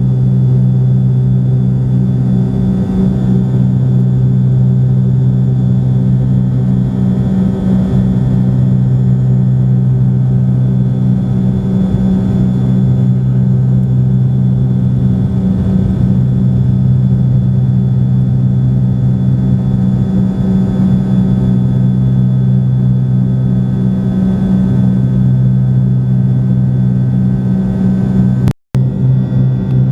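Airplane engines droning steadily in flight, heard inside the cabin: a deep, unchanging hum with a second, higher hum above it. The sound cuts out for an instant about a second before the end.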